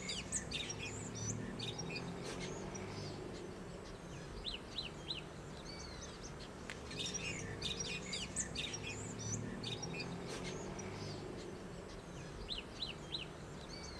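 Several birds chirping and calling: many short chirps and quick rising and falling whistles, over a steady low hum of outdoor background noise.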